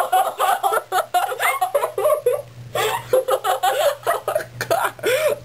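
Two girls laughing hard together, giggling in short bursts with a brief lull about halfway through.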